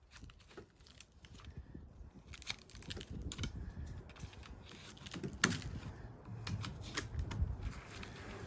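Irregular clicks, knocks and rustling, as of parts being handled, over a low rumble, with one sharper knock about five and a half seconds in.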